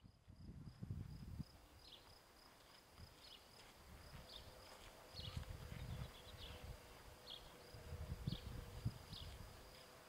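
Quiet outdoor ambience: gusts of wind rumbling on the microphone, with short high chirps about once a second and a faint steady high tone.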